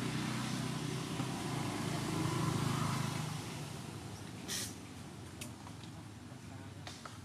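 Steady low hum of a motor vehicle engine, fading out after about three and a half seconds, followed by a few faint sharp clicks.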